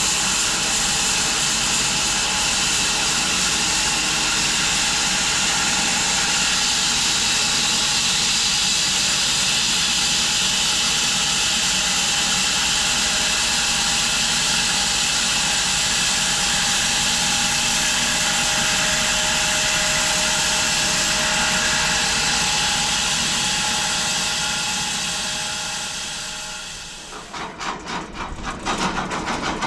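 A machine running steadily with a loud hiss and a few held tones, which winds down near the end. A rhythmic, pulsing engine-like sound then takes over.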